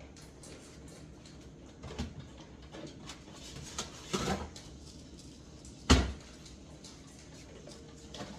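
A few light knocks and handling sounds, then a single sharp thump about six seconds in, like a door or cupboard being shut.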